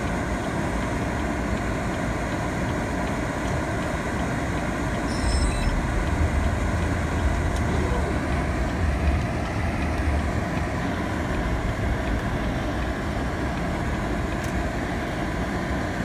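Steady engine and tyre noise inside a GMC Sierra pickup's cab as it drives through deep snow, with a heavier low rumble for several seconds near the middle.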